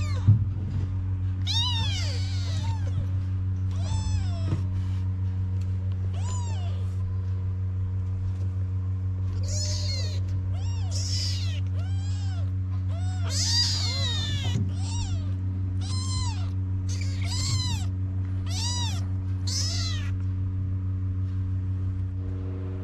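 Young kittens mewing over and over, high-pitched rising-and-falling cries that come faster in the middle: calling for their mother. A steady low hum runs underneath.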